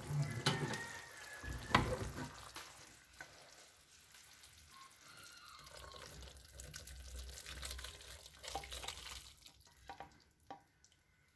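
Wooden spoon stirring and knocking in a pan of hot, syrupy boiled dried fruit, with a sharp knock a little under two seconds in. Then the sticky fruit mixture is scraped and poured into a glass bowl.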